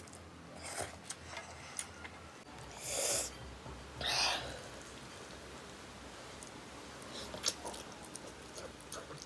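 A person slurping instant noodles off chopsticks: two short breathy slurps about three and four seconds in, with small clicks of eating in between.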